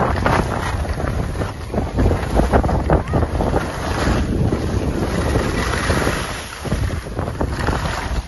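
Wind noise rumbling on the microphone of a skier moving downhill, with skis hissing and scraping over packed, cut-up snow, the scraping swelling on the turns.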